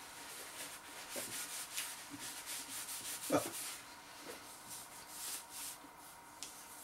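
Paper napkin rustling and rubbing as hands are wiped with it, with one short thump about halfway through.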